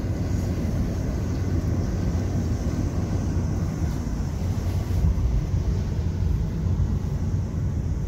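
Car driving, a steady low rumble of engine, tyre and wind noise heard from inside the cabin.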